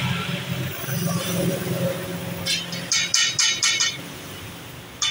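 Steady low hum of road traffic, with a quick run of about seven sharp metallic clinks about two and a half seconds in and one more near the end: a steel teppanyaki spatula striking the hot steel griddle.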